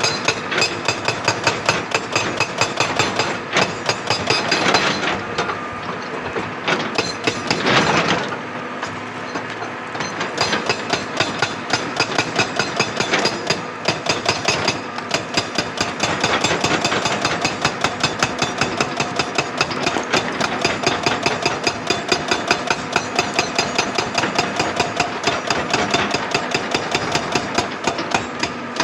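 Excavator-mounted hydraulic rock breaker hammering rock in a fast, even train of blows, with engine noise underneath. The hammering eases briefly about five seconds in and again around eight to ten seconds in.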